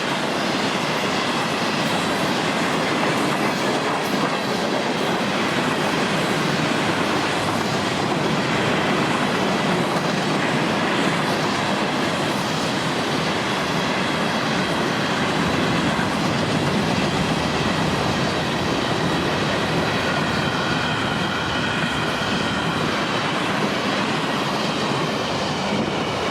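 Train cars rolling past, the wheels clicking steadily over rail joints, with a faint high-pitched wheel squeal coming in during the last several seconds.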